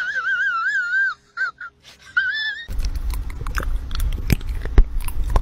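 A cat yowling in a long, warbling cry that wavers quickly up and down, followed by two short calls and a brief rising meow. About halfway through, a rumbling noise with scattered sharp clicks takes over.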